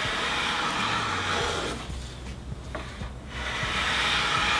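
Hand plane cutting a molding profile along a wooden board: three long push strokes, each a steady hiss of the blade shaving wood, with short breaks between them.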